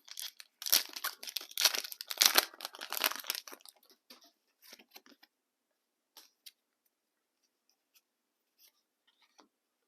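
A foil Pokémon booster pack being torn open by hand, a loud rip-and-crinkle for about three seconds, followed by faint rustles and ticks of cards being handled.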